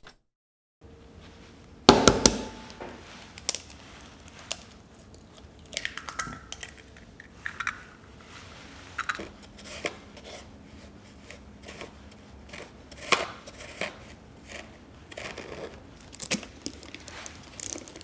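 Kitchen prep sounds at a glass mixing bowl on a digital scale: a sharp knock about two seconds in, then scattered light clicks and taps as sugar is poured into the bowl onto a raw egg.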